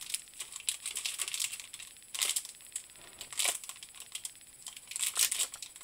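Plastic candy wrapper crinkling as it is handled, in irregular crackly bursts, the loudest about two, three and a half and five seconds in.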